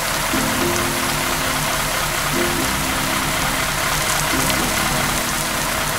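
Water sprayed from a fire truck's water cannon, heard as a steady rushing hiss. Background music runs under it, with a short tune that repeats about every two seconds.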